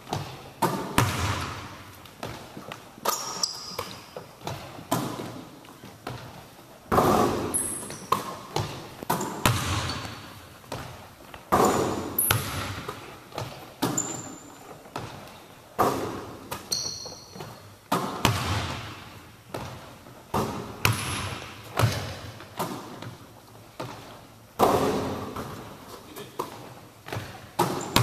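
A basketball bouncing and thudding on a hardwood gym floor and off the hoop, a sharp impact every two to three seconds, each echoing around the large hall, with brief high sneaker squeaks in between.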